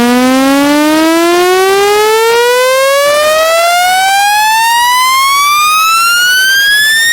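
Speaker-cleaning tone: a loud electronic tone with many overtones, sweeping steadily upward in pitch from low to high.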